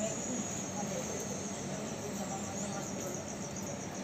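Crickets chirping: a steady, high-pitched trill of rapid, even pulses, over a low murmur of room noise.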